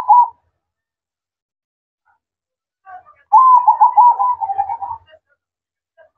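Zebra dove cooing its rapid, staccato song: the tail of one phrase right at the start, then a soft note and a full phrase of quick coos about three seconds in, lasting under two seconds.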